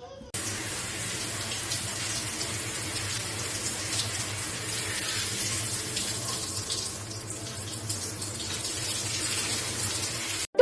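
Water running steadily from a tap into a sink, starting suddenly and cutting off abruptly near the end.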